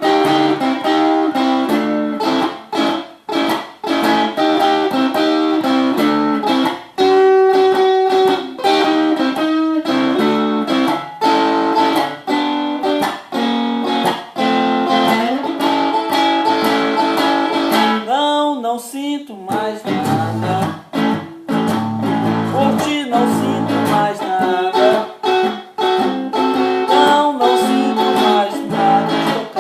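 A 1970s Tonante electric guitar with a cedar body and Wilkinson pickups playing a blues passage of single notes and chords. About two-thirds of the way through comes a wavering, bent note.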